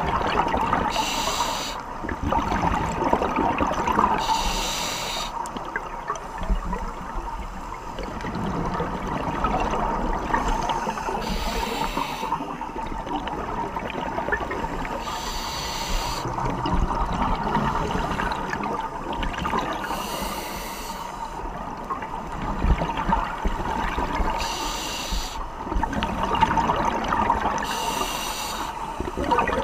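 Scuba diver breathing through a regulator underwater: slow breaths every few seconds, each a hiss of air drawn in, between them the bubbling gurgle of exhaled air.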